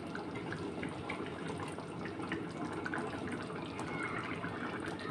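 Thin tomato-onion curry gravy simmering in a metal kadhai, bubbling steadily with many small pops.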